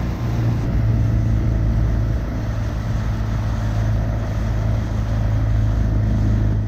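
Dinghy outboard motor running steadily underway, a low, even engine hum with the rush of noise around it.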